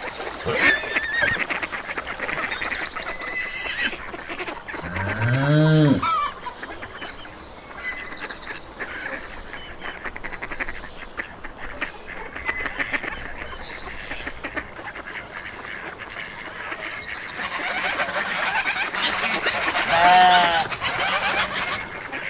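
Farmyard animals calling, a busy mix of short calls. About five seconds in comes a longer, lower call that rises and falls, and near the end a loud, higher pitched call.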